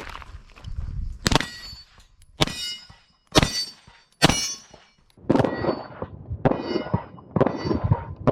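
Shots from a Tanfoglio FT1911 Custom pistol fired in a string about a second apart, coming quicker near the end. Steel targets ring with a metallic clang after the hits.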